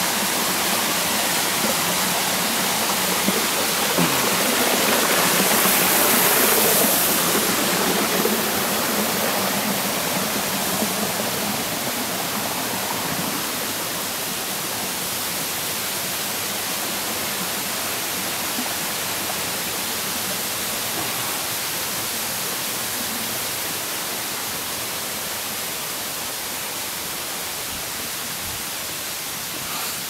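Waterfall and its stream rushing over rocks: a steady, dense hiss of falling water that is loudest about five to seven seconds in and then slowly fades.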